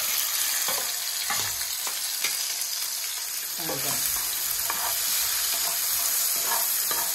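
Chopped tomatoes sizzling in a hot frying pan as they are tipped in and stirred with a steel spoon: a steady, hissing fry.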